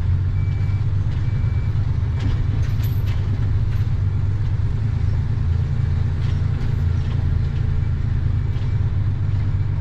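Truck's diesel engine running steadily, heard from inside the cab, with a few faint clicks.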